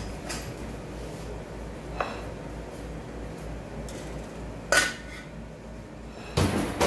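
Kitchen bowls and dishes being handled on a counter: a small click about two seconds in, a sharp clatter near five seconds, and a longer knock and scrape near the end as a plastic mixing bowl is set down and moved.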